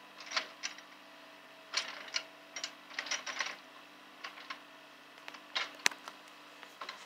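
Takeuchi mini excavator working with its engine a faint, steady drone. Irregular clusters of sharp clicks and clatters come over it, the sharpest just before six seconds in.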